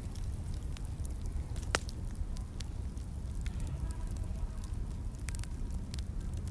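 Crackling fire: a steady low rumble of burning with scattered sharp pops and crackles, the loudest pop a little under two seconds in.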